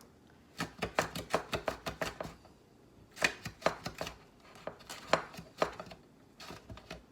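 Cucumber being slid across a mandoline slicer blade, a quick run of sharp slicing strokes about two or three a second. The strokes come in several short runs with brief pauses, fainter near the end.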